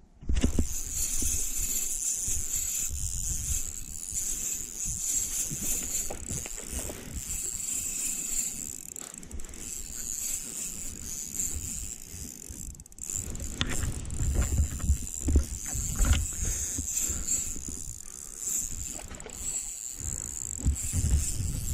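Spinning fishing reel being cranked, its gears and rotor whirring steadily with scattered clicks, over a low rumble of handling noise on the microphone. It starts suddenly just after the start.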